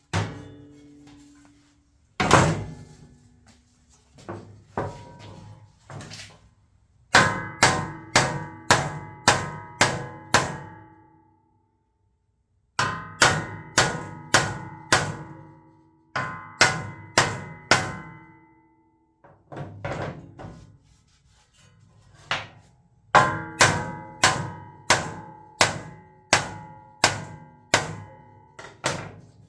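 A hammer striking a dented metal part of a Honda EU3000is generator to knock the dent down. The blows come in runs of about two a second with short pauses between runs, and each one rings briefly.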